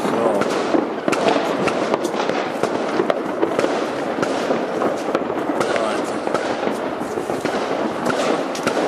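Fireworks going off in a dense, continuous barrage: many bursts and crackles overlapping, with frequent sharp pops and no pause.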